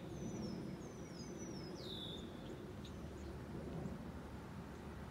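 A bird calling: about four short chirps that slide downward in pitch in the first couple of seconds, the last one the strongest, over a faint low rumble.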